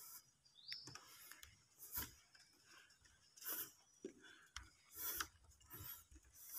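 Near silence: quiet room tone with a few faint, soft taps spaced a second or more apart.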